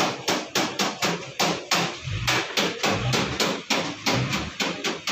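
Repeated hammer blows in quick succession, about three to four strikes a second, as in workshop repair work.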